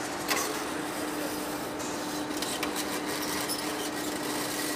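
A large lathe cutting the rusty scale off a big steel workpiece: the tool makes a steady scraping hiss over a constant machine hum, with a few sharp clicks.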